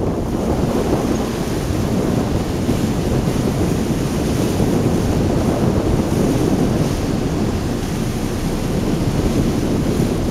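Wind buffeting the microphone: a loud, steady, low rushing noise with no let-up.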